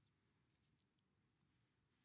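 Near silence: faint room tone with three small clicks in the first second, from a pencil and a paper label being handled and set down.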